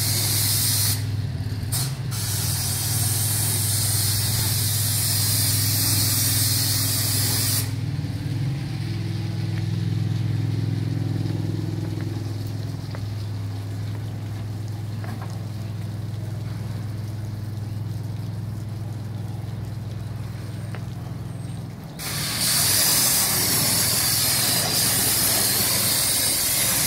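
High-pressure water jet from a pressure cleaner hissing as it blasts paving, over the steady low hum of the machine's engine. The spray cuts off after about eight seconds, leaving only the engine running, and starts again near the end.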